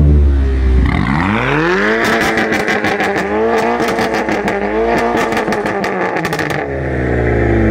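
Car engine revved up from idle about a second in, its note rising steeply and held at high revs for several seconds with a string of sharp crackles. It then drops back to idle near the end.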